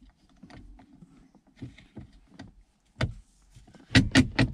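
Hard plastic handling sounds from a replacement gear shift knob being worked onto the shift lever: faint rubbing, a sharp click about three seconds in, then several loud knocks near the end.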